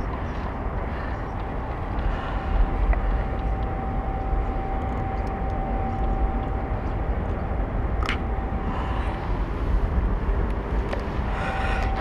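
Steady outdoor background noise with a heavy low rumble and a faint steady high tone through most of it, and a single sharp click about eight seconds in.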